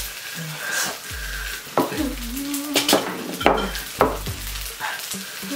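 Noodles being slurped and chewed close to the microphone, with repeated wet mouth clicks and smacks. A short hummed sound from a voice comes about two seconds in.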